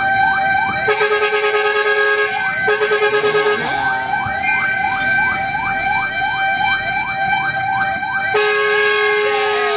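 Fire truck's electronic siren yelping, about three rising sweeps a second. A steady horn blares over it about a second in, again near three seconds, and without a break from near the end.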